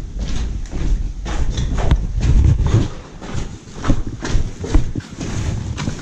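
Footsteps on concrete stairs and floor, steady strikes about two a second over a low rumble.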